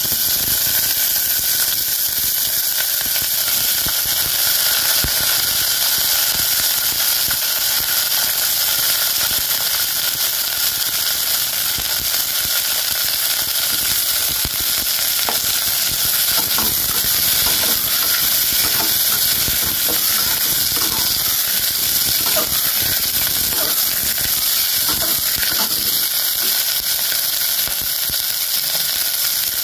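Baby corn sizzling in a little oil in an aluminium pot: a steady frying hiss. From about halfway come light knocks as more vegetables drop in and a metal ladle stirs them.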